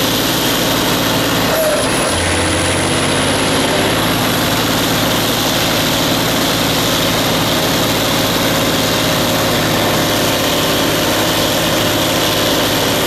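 Off-road trial truck's diesel engine running steadily. About two seconds in its note shifts to a deeper, stronger hum and then holds.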